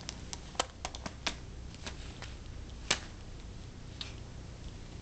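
Handling noise around a monitor lizard: irregular sharp clicks and small taps, about a dozen in the first three seconds, the loudest about half a second and three seconds in, then fading to a faint steady background.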